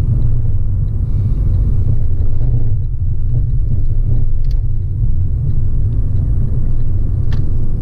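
Inside the cabin of a 2007 Fiat 500 with a 1.2-litre four-cylinder petrol engine, driving and turning: a steady low rumble of engine and road noise, with a couple of faint clicks.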